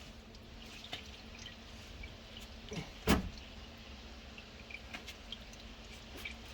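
Engine oil trickling and dripping from the drain hole into a drain pan near the end of draining, faint, with scattered small drip ticks. A single dull thump about three seconds in.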